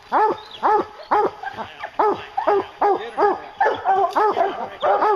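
English hounds barking treed at a black bear: a steady chop of barks, each rising and falling in pitch, about two or three a second and overlapping in places. This is the tree bark, the sign that the dogs have the bear up a tree.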